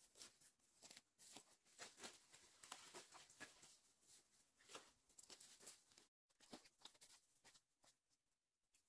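Faint, irregular crunching and rustling of footsteps through dry fallen banana leaves and leaf litter, thinning out and fading away near the end.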